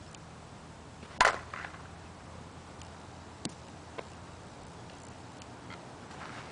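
Slowpitch softball bat striking a pitched ball: one sharp crack with a brief ring about a second in, followed by a couple of faint clicks.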